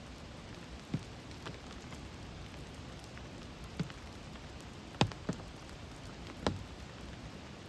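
Steady rain hiss with a handful of sharp, close drop taps, the loudest about five seconds in.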